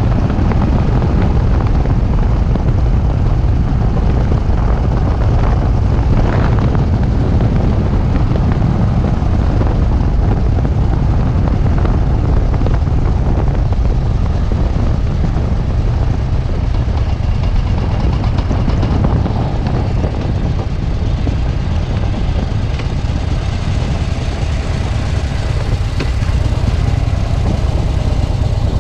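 Harley-Davidson V-twin engine running steadily while riding, mixed with heavy wind buffeting on the handlebar-mounted action camera's microphone.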